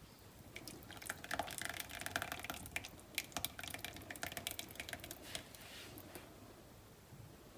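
Roast chicken pan juices poured from a glass baking dish through a wire-mesh strainer into a jug. The liquid trickles and splashes in a dense run of small splashes from about a second in, dying away near six seconds.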